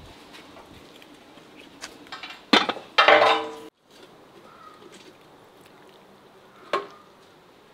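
Metal cookware clanking against a cast-iron pot about two and a half seconds in, twice, ringing briefly before cutting off suddenly. A single sharp tap of a serving utensil comes near the end.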